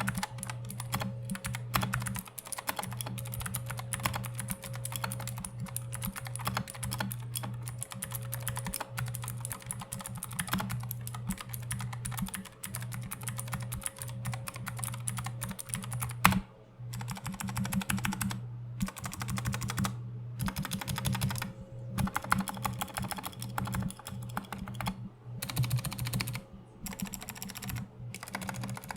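Typing on a GK61 60% mechanical keyboard with clicky Gateron Blue switches: rapid, continuous key clicks, broken by short pauses from about halfway through, over a low steady hum.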